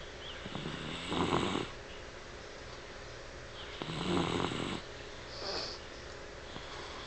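Sleeping dog snoring: two snores about three seconds apart, each just under a second long, and a fainter one shortly after the second.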